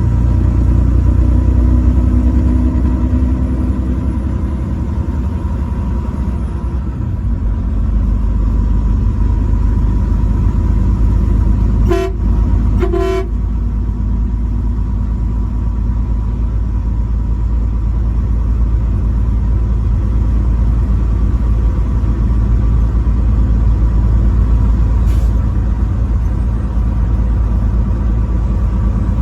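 Steady low rumble of a truck's engine and road noise while driving. About twelve seconds in, the truck horn gives two short toots about a second apart.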